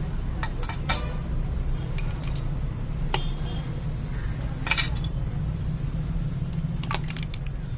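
Scattered light metallic clinks and taps, as of hand tools and small metal parts being handled and set down, with the sharpest cluster a little before five seconds, over a steady low rumble.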